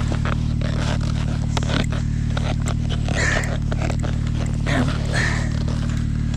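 A steady low engine hum idling throughout, under irregular scraping and rustling from handling a dead wolf's frozen-in leg, with two louder scrapes about three and five seconds in.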